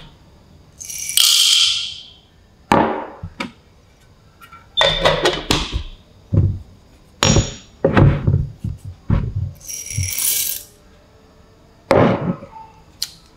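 Whole coffee beans poured from ceramic cups, rattling into an electric burr grinder's hopper and into a stone mortar, twice in a hissing rattle about a second long. Between the pours come short knocks and clinks as the ceramic cups are set down on a wooden counter.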